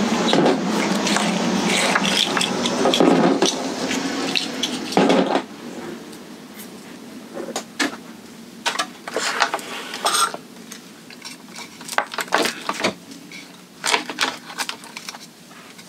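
Small hard plastic pieces clattering together for about five seconds as a pile of cut-up QS8 connector housings is gathered up, followed by scattered clicks and taps of hands working on the RC car's chassis.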